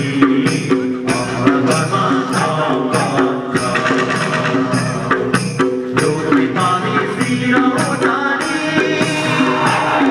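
Dance music with a steady beat, about two strikes a second, and a melody over it.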